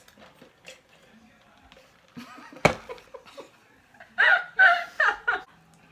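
Two women laughing in several short, high bursts in the second half, after a single sharp, sudden sound about two and a half seconds in.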